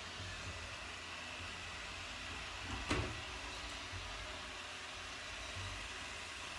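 Shark ION R75 robot vacuum running with a steady whir, with a single sharp knock about three seconds in.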